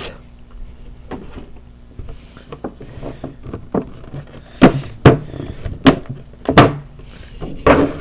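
Packaging of a Pokémon card box being handled, giving irregular knocks and clicks, the loudest five in the second half.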